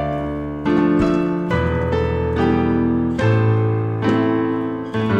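Piano playing a slow melodic phrase with full chords in both hands, about six chord strokes each held to ring over deep sustained bass notes. It is an embellished arrangement with left-hand bass fills.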